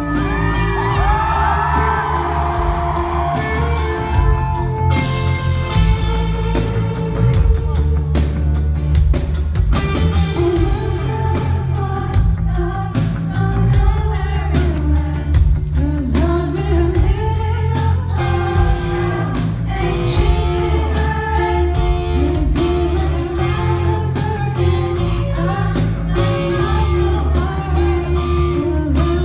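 Live rock band playing a song in a large hall: singing over electric guitar, bass and a steady drum beat.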